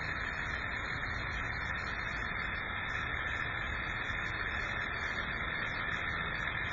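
Small solar-powered Stirling engine running steadily with its flywheel spinning, heated by sunlight focused through a Fresnel lens onto steel wool in its glass displacer chamber.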